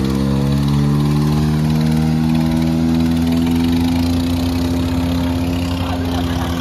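Diesel engines of a Sonalika DI 35 and a Mahindra 475 DI tractor running hard under load in a tractor tug-of-war. A steady engine note that climbs slightly in pitch over the first couple of seconds, then holds.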